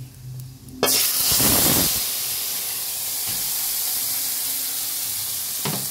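A wet paste dropped into a pan of hot oil and whole spices: a sudden loud sizzle about a second in, strongest for the first second, then settling into steady frying.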